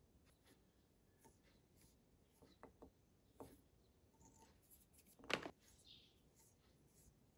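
Very faint rustling and light ticks of fingers handling dubbing and tying thread at a fly-tying vise, with one sharper tick about five seconds in.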